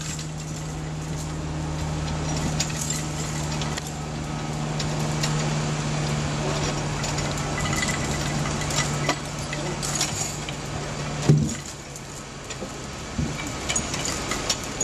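Engine and winch of a short-distance cable yarder running with a steady hum while hauling a suspended log along the skyline, with light metallic ticks over it. About eleven seconds in there is a sharp clunk and the hum stops.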